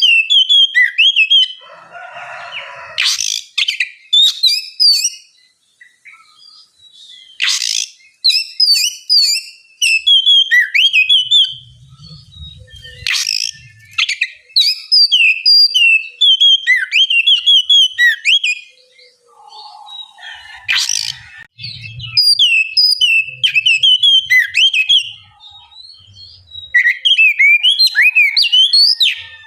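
Oriental magpie-robin (kacer) singing a long, varied run of quick whistled phrases with short pauses between them, broken by a few sharp loud notes.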